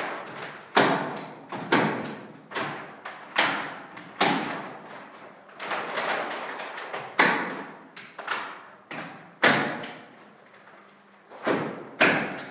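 A run of about fifteen sharp thumps and slaps at irregular spacing, roughly one a second, each dying away over about half a second.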